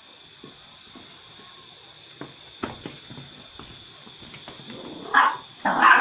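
Dog barking: short, loud barks about half a second apart, starting about five seconds in, after a few light knocks.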